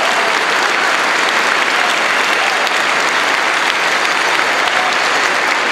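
A large audience applauding, a steady, even clatter of many hands clapping.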